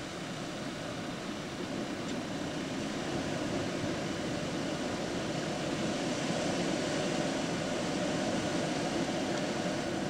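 Hurricane wind blowing steadily in a continuous rushing roar that grows slightly louder over several seconds.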